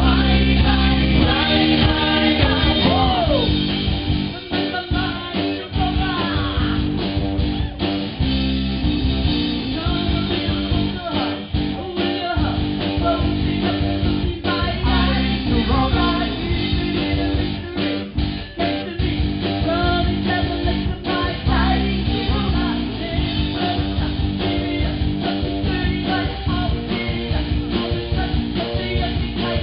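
Live rock band playing a song, with bass guitar, guitar and a sung lead vocal.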